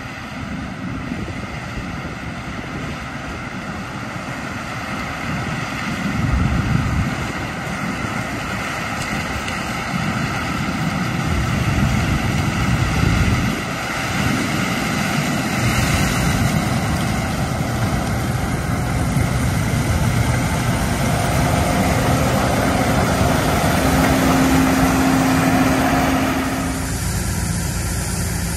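Peterbilt grain truck's diesel engine running steadily while driving. The engine note builds over the last several seconds, then drops off abruptly near the end.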